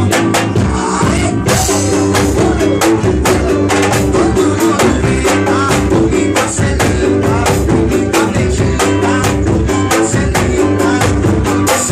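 Band music: a drum kit and dense percussion keep a steady beat over a repeating bass line.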